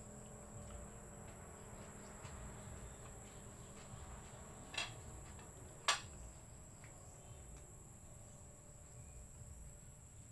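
Steady high-pitched insect chorus, with two sharp clicks about a second apart near the middle.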